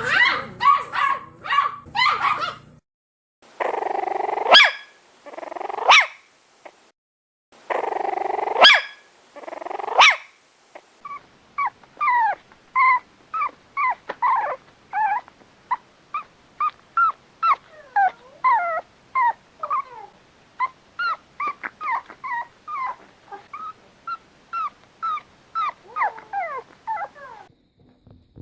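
Puppies barking and yipping in several separate recordings. It opens with quick sharp yaps, then growly build-ups that break into loud barks. A long run of short, high-pitched yips follows, at about two a second.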